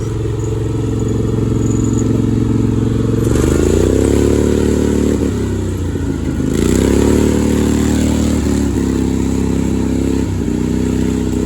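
ATV engine running on the move, revving up a few seconds in, easing off around the middle, then pulling up again, with two sudden steps in pitch near the end like gear changes.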